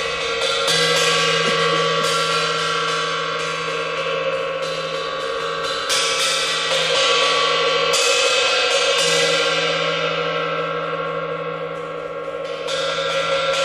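Live dance accompaniment music: sustained ringing tones, with new struck notes every second or two that ring on. It dips a little near the end, then swells again.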